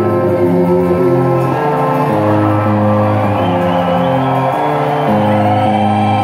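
A live rock band playing in an arena, heard from the audience, with held low notes changing about once a second. A long wavering high note comes in near the end.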